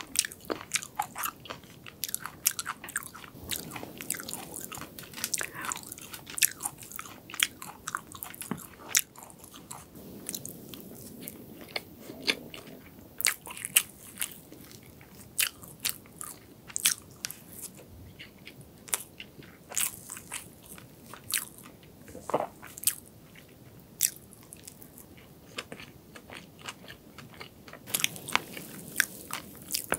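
Close-miked chewing of soft chocolate cake with cream, with many sharp wet mouth clicks and smacks throughout.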